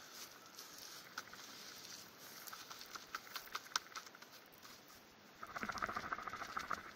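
Rustling and scratching of leather work gloves being handled close to the camera, with scattered small clicks, then a louder, dense scratchy rustle for about a second and a half near the end.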